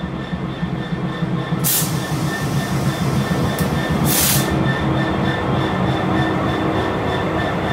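GB Railfreight Class 66 diesel locomotive passing slowly alongside the platform, its EMD two-stroke V12 engine running with a low drone and a steady high whine over it, growing louder as the locomotive draws level. Two short hisses cut through, about two and four seconds in.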